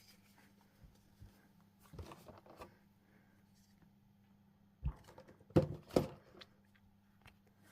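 Handling noise from unpacking a mini airbrush compressor from its box: a few soft rustles, then several sharp knocks and clicks about five to six seconds in.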